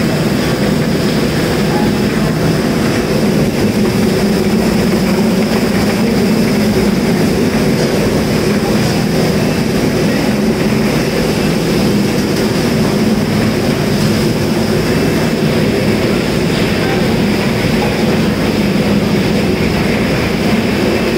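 Stainless-steel drum chicken plucker (defeathering machine) running steadily: a constant low mechanical hum with a thin high whine above it.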